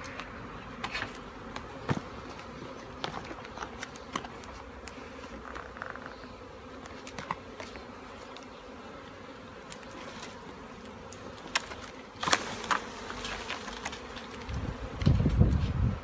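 Honeybee swarm buzzing, a steady low hum, with scattered short clicks and a sharp knock about twelve seconds in; low rumbling near the end.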